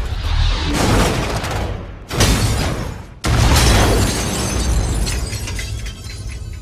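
Cartoon sound effects of a machine exploding: a run of heavy blasts with shattering and crackling debris, fresh blasts coming about a second in, at two seconds and just after three seconds, then easing off near the end, with film score underneath.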